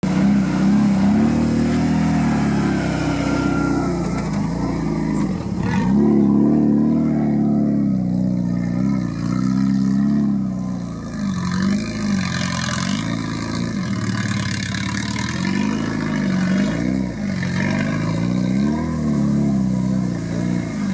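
Suzuki Samurai 4x4's engine revving up and down over and over as the lifted off-roader crawls and climbs over rough, bumpy ground.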